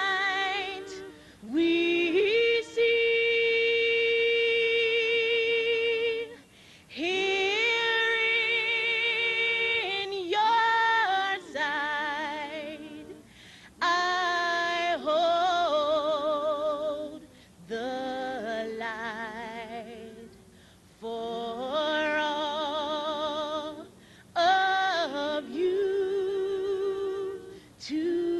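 A woman singing solo and unaccompanied, in long phrases of held notes with a wide vibrato, each phrase broken off by a short pause for breath.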